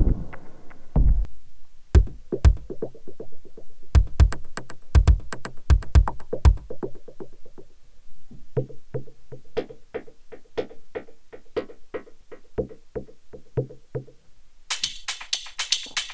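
Omnisphere synth percussion patches played in a tempo-synced pattern. First comes a deep electronic kick, then from about halfway a quicker, tuned, clicky percussion pattern, and near the end a hi-hat-like ticking.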